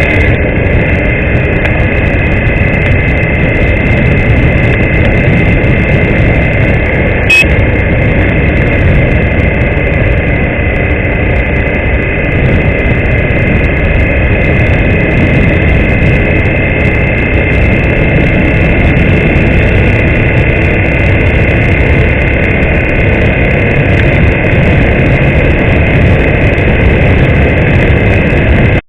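Honda XR250 Tornado's single-cylinder 250 cc engine running steadily, with a dense low rumble. A brief click about seven seconds in.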